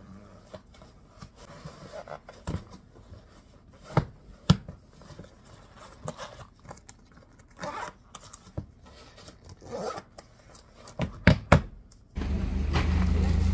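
Scattered clicks, knocks and scraping handling noises, with two sharp knocks near 4 to 4.5 seconds and a pair about 11 seconds in. About 12 seconds in, a loud steady low rumble starts abruptly.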